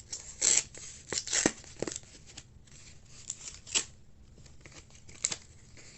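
Packaging being opened by hand: short rustles, snaps and tearing of heavily taped mailer packaging, in several separate bursts with quieter handling between.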